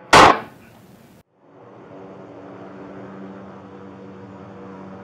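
A sudden, very loud handgun shot fired right at the body-worn camera, over in a fraction of a second. After a brief dropout, the steady hum of an idling vehicle engine runs on.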